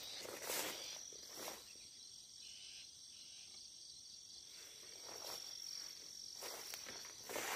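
Insects keeping up a steady, high-pitched trill, with footsteps brushing through grass and weeds a few times, loudest near the start and near the end.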